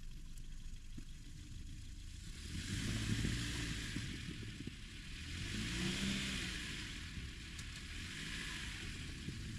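Toyota Corolla stuck in deep snow, its engine revving up in two surges a few seconds apart over a steady idle while the tyres spin and churn the snow without getting grip.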